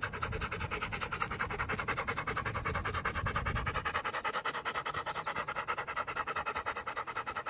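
Rottweiler panting fast and steadily close up, about eight breaths a second.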